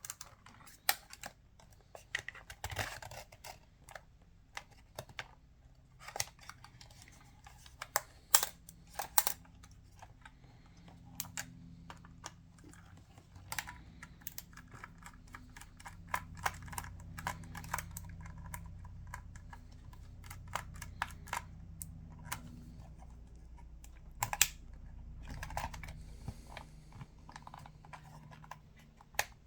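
Irregular small clicks and taps of hand tools and fingers on the plastic and metal body of a Canon EOS 5D DSLR as it is taken apart. A faint low hum comes in about ten seconds in and fades near the end.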